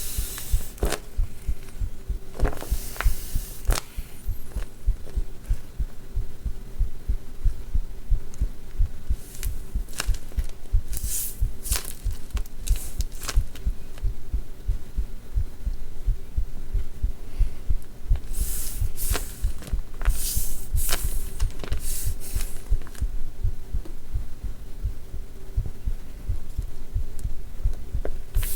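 Background music with a fast, deep, throbbing bass beat, over short bursts of rustling and scraping from paper being handled, clustered in a few spells.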